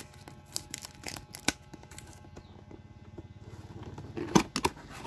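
Clear plastic wrapping on a router box being torn and crinkled by hand: scattered sharp crackles and rustles, the loudest pair about four and a half seconds in, over a faint low hum.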